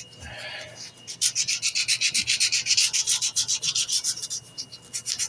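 Hand sanding a mahogany knife handle with a strip of sanding belt: quick back-and-forth rubbing strokes of abrasive on wood, several a second, starting about a second in.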